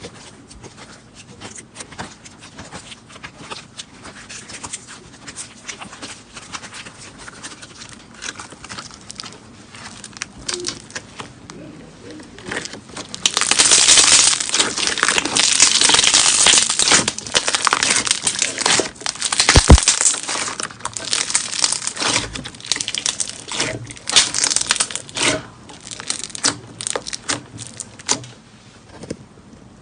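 Slime being squeezed and worked by hand, giving dense crackling and popping clicks. It gets much louder and busier about halfway through, then eases off into scattered clicks.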